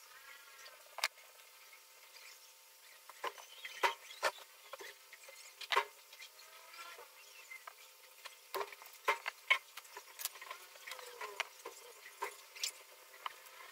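Irregular sharp clicks and taps of small plastic model-kit parts being handled and fitted, with a few faint high squeaky chirps.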